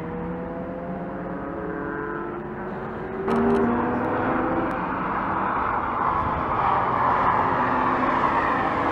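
Lamborghini Aventador's V12 engine, on a stock exhaust, accelerating past on track, its pitch rising steadily. About three seconds in, an edit jumps to a louder, closer pass of the same car, the engine note mixed with tyre and wind noise.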